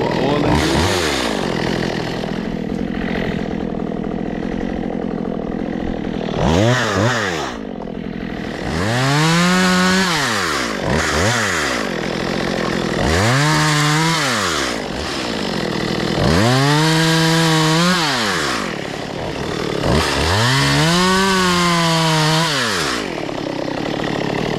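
Stihl MS 192 TC two-stroke chainsaw running after a carburetor adjustment. It is revved up and back down to idle about seven times, and on several revs it is held at high speed for a second or two.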